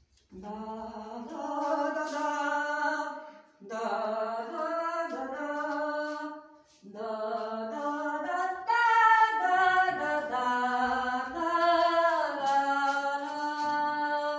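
A single voice singing a melody unaccompanied, in several phrases with short pauses between them.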